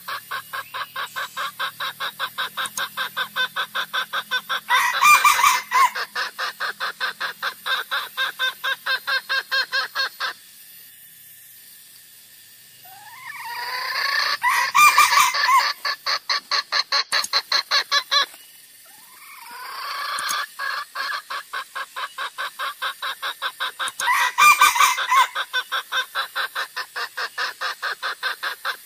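Junglefowl lure calls: rapid, evenly spaced clucking at about five clucks a second, in long runs that stop twice for a second or two. About every ten seconds a louder call, about a second long, stands out over the clucking.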